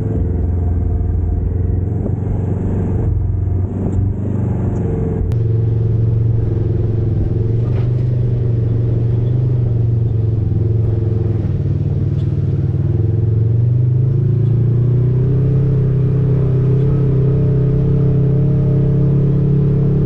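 Off-road vehicle engine running steadily while under way on a trail, its pitch drifting gently down and back up.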